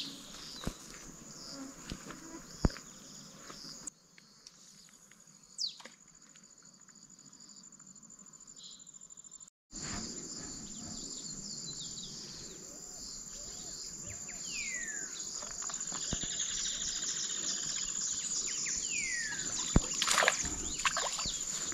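Steady high-pitched insect chirring, with a few sharp clicks and, in the second half, several short falling bird whistles.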